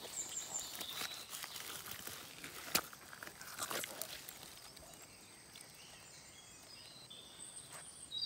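Rustling of leaves and undergrowth with scattered soft knocks and one sharp click about three seconds in, as a hand works at a plastic latex collecting cup and pulls out a lump of coagulated rubber. The handling noise dies down after about five seconds.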